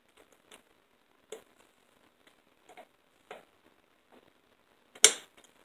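Light, scattered metal clicks of pliers working an E-clip onto a riding mower's front wheel axle, then one sharp, louder click about five seconds in as the clip snaps into place.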